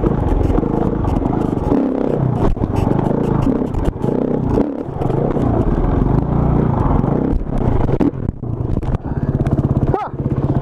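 KTM enduro motorcycle engine running as it is ridden over a rough dirt trail, the throttle opening and closing, with clattering and knocks from the bike over the ground. Near the end it settles into a steady idle.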